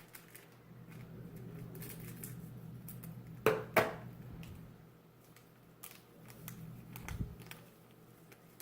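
Scissors snipping open a small plastic packet of slime powder, two sharp snips close together about three and a half seconds in, with light crinkling and handling clicks around them.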